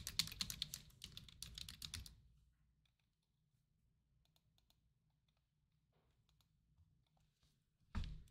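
Computer keyboard typed on in a rapid run of key clicks lasting about two seconds, then stopping. A single short knock comes near the end.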